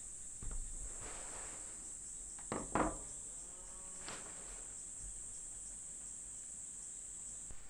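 Insects chirring in a steady high-pitched drone throughout. A bamboo colander is set down on a wooden table with a soft knock about half a second in, and a brief louder handling noise follows a couple of seconds later.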